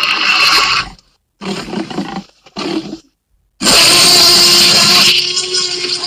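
Tyrannosaurus rex roar sound effects from the Jurassic Park films. One roar ends about a second in, two shorter calls follow with silent gaps around them, and a long, loud roar begins just past the middle.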